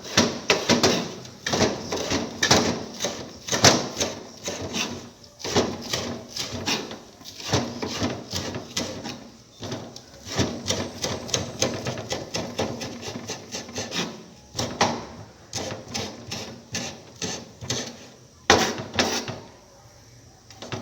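Kitchen knife rapidly chopping scallions on a cutting board, a quick run of sharp knocks of the blade on the board, a few a second with short pauses, stopping just before the end.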